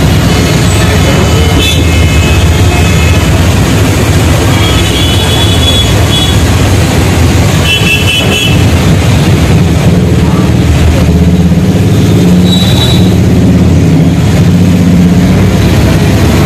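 A bus engine running steadily and loud from inside the driver's cab, crawling in slow traffic. Short horn toots from surrounding vehicles sound about four times.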